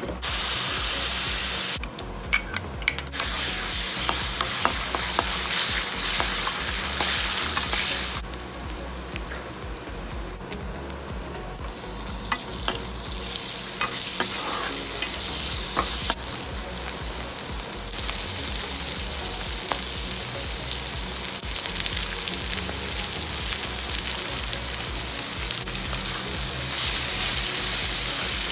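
Food sizzling in a hot wok while a spatula stirs and scrapes it, with scattered sharp clicks of the spatula against the pan. The sizzle grows louder near the end.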